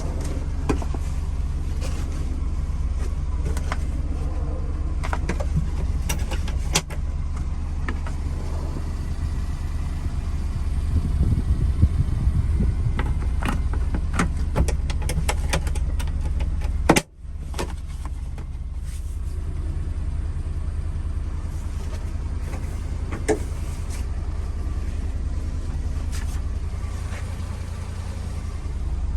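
Subaru Sambar mini truck's small supercharged EN07 engine running with a steady low hum, with scattered clicks and knocks and a brief gap in the sound just past the middle.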